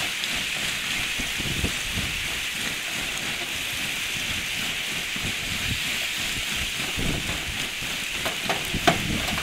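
Wind-driven lake ice shove: a sheet of melting, rotten ice grinding and crackling as it pushes ashore, a steady hiss that sounds like a train. A few sharp cracks stand out near the end.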